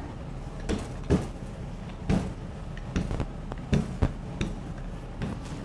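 Scattered light knocks and thumps, about eight at irregular intervals, as a sheet of puff pastry is laid on and rolled up by hand on a stainless steel bench, over a steady low hum.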